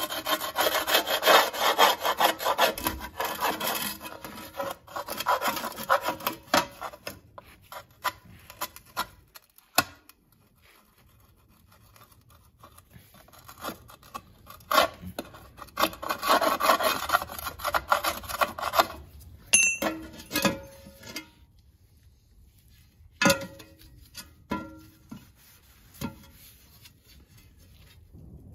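A metal scraper scraping residue off the gasket flange of a rusty steel differential cover, in quick rasping strokes. The scraping comes in two long bursts, one at the start and one past the middle, with quieter scraping between them. Near the end it gives way to a few separate sharp taps and knocks.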